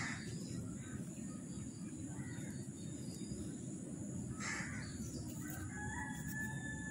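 Faint crow caws, about three short calls roughly two seconds apart, over a steady low rumble. A thin high whistle-like bird note comes in near the end.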